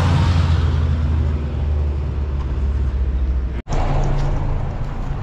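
Renault 4's four-cylinder engine running as the car drives close past, a loud low hum. About three and a half seconds in the sound cuts out for an instant, then a steadier, quieter engine hum goes on.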